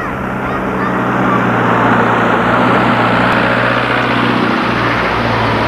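A motor vehicle's engine running close by, a steady low hum under road and traffic noise.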